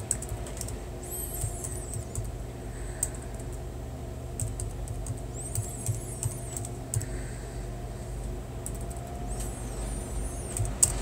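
Typing: scattered, irregular key taps, with a few faint high warbling chirps over a steady low background hum.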